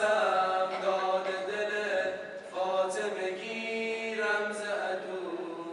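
Tawashih, an Arabic Islamic devotional chant, sung a cappella by male voices in long held phrases.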